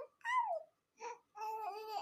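A baby crying and babbling in short whiny calls: three in quick succession, the first sliding down in pitch, the last longer and wavering.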